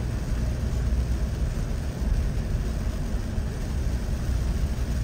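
Car cabin noise while driving on a rain-wet road: a steady low rumble of engine and tyres with an even hiss above it.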